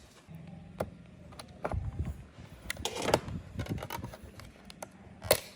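Scattered clicks and light clatter of small parts and hand tools being handled during the robot vacuum's disassembly, with a sharp click near the end, over a low steady hum.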